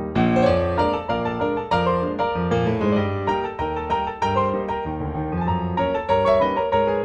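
Background piano music: a lively tune of quick struck notes, with a fuller, brighter passage beginning at the start.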